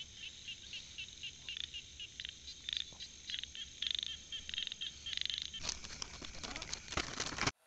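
Night-time chorus of short, high chirping calls, repeating several times a second and sometimes running into longer trills. Rustling noise joins them near the end.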